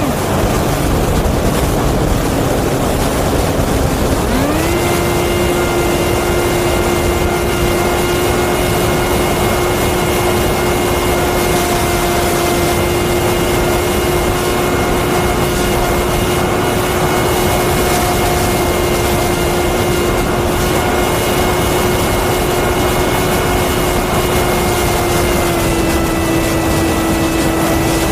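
Brushless electric motor and propeller of a small FPV flying wing whining in flight, heard on board over a steady rush of wind. The pitch drops at the start as the motor slows, sweeps quickly back up about four seconds in and holds steady, easing down a little near the end.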